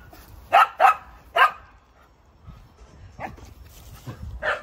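Dog barking: three loud, sharp barks in the first second and a half, then two fainter barks later.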